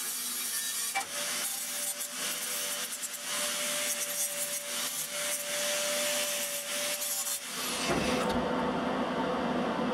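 Abrasive work on steel in a metal workshop: a steady, rough scraping hiss with a faint steady whine, ending about three-quarters of the way through. It gives way to a steady electrical hum.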